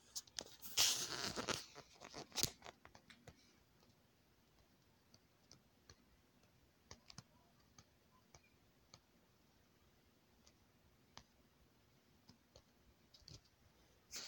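Rustling, scratching handling noise from a phone being moved against fabric about a second in, with a few sharp clicks. Then sparse faint clicks and ticks in a quiet room.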